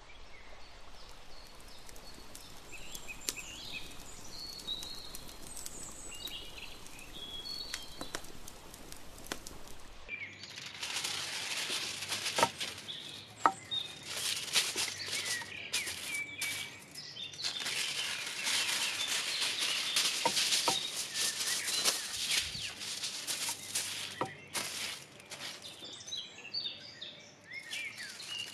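Birds chirping over a quiet outdoor background for about ten seconds. Then aluminium foil is unrolled from its roll and handled, giving a loud, dense crinkling and crackling that fades out a few seconds before the end, when the birds are heard again.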